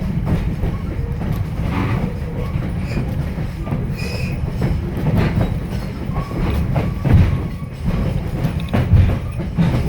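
Passenger railroad car rolling along the track, heard from on board: a steady low rumble of wheels on rail with irregular knocks and clanks.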